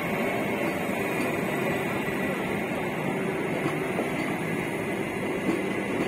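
Vande Bharat Express electric multiple-unit train passing close by, its wheels running on the rails in a steady noise.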